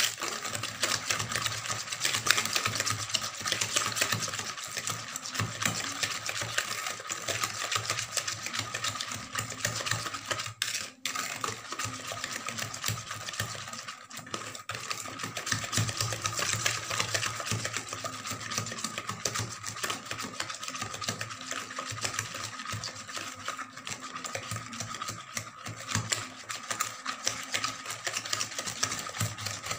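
Hand whisk beating eggs and sugar in a plastic mixing bowl: a rapid, continuous clatter of the whisk against the bowl, with a brief pause about eleven seconds in.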